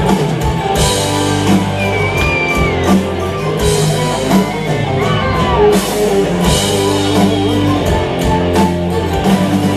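A rock band playing live: an instrumental passage of electric guitars and drum kit between sung lines of the song, loud and steady.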